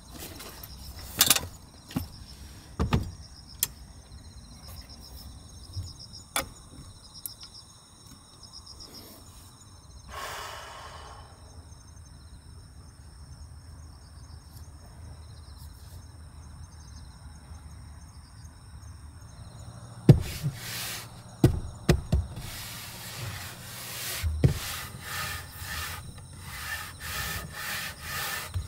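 Insects chirping steadily outside, with scattered knocks and clatter of gear being handled and set down inside the van, and a brief rustle about a third of the way in. A quick run of knocks and rubbing on wooden boards fills the last third.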